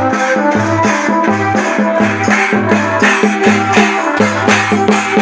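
Santhali festival drumming: hand-beaten double-headed barrel drums (tumdak') and a stick-beaten drum keep a steady rhythm of deep strokes, about two a second, with a bright jingling over the beat.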